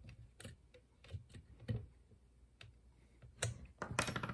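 Scattered light clicks and ticks of a steel Allen key working a screw into a black aluminium extrusion frame. Near the end, a short clatter as the Allen key is set down on the wooden bench.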